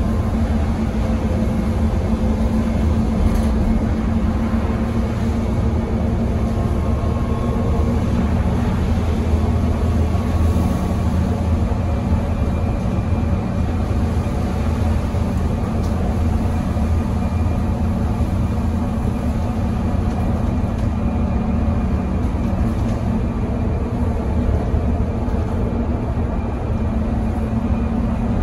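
Interior running noise of a Mercedes-Benz OC500LE bus under way, heard from inside the passenger cabin: the M447hLAG six-cylinder turbocharged CNG engine and road noise make a steady low drone, with faint higher tones riding on it.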